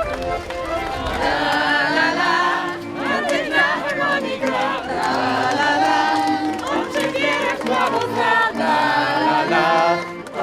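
A group of folk dancers singing a song together as they march, accompanied by an accordion.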